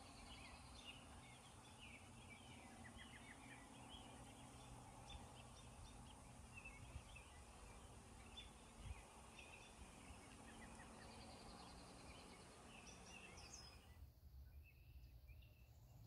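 Faint evening birdsong: several birds chirping and giving short trills over low background noise. The chorus thins out abruptly about fourteen seconds in.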